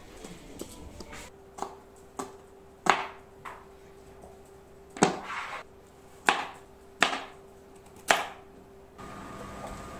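Kitchen knife chopping on a plastic cutting board: about eight sharp, separate chops at an uneven pace.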